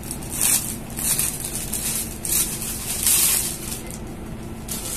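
Clear plastic packaging crinkling in irregular rustles as a folded panjabi is handled and unwrapped from its bag.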